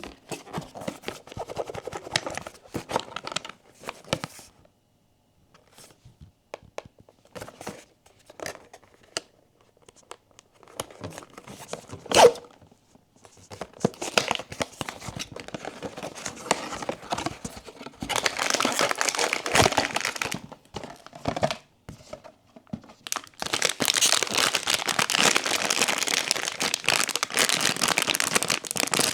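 Blind-box toy packaging being handled and opened: plastic wrapping rustling, tearing and crinkling, with scattered clicks and one sharp loud click near the middle. The second half holds long, dense stretches of crinkling.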